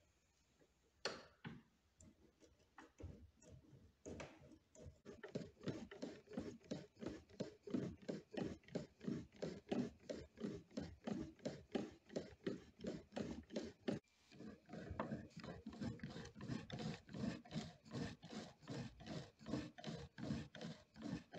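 Toothed cutter wheel of a hand-cranked slot-cutting machine rasping into wood, a few scattered clicks as it starts, then a steady run of cutting strokes, a few each second, with a brief pause about two-thirds of the way through.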